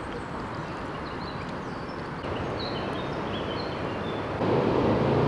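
Outdoor ambience: a steady rushing background with a few short, high bird chirps in the middle. A low rumble comes in about four seconds in and grows louder.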